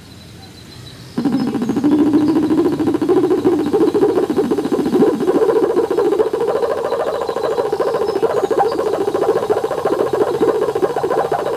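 Pedal-powered sound-art stationary bike making its noise as it is ridden: a rough, buzzing tone that starts suddenly about a second in, drifts slowly upward in pitch, and climbs more steeply near the end.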